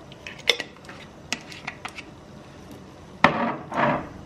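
A seasoning container being handled and used over fish: a few light clicks and taps, then two short, rough bursts of seasoning being shaken or ground out, a little over three seconds in.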